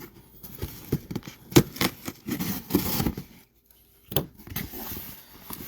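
A cardboard shipping box being opened and its contents handled: scraping and rustling with several sharp knocks, and the sound drops out briefly a little past halfway.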